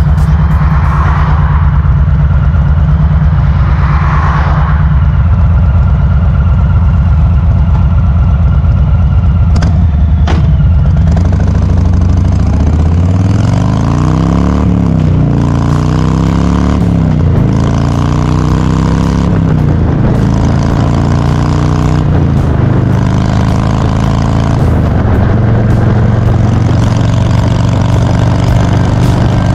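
Harley-Davidson FXLR's air-cooled V-twin running steadily for about twelve seconds, with two sharp clicks near the ten-second mark, then pulling away and accelerating up through several gears, its pitch rising and dropping at each shift, before settling into a steady cruise.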